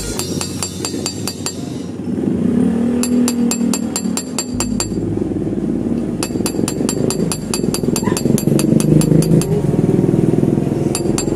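Runs of quick, evenly spaced metallic clicks, about five or six a second, starting and stopping in several bursts, over a steady low hum.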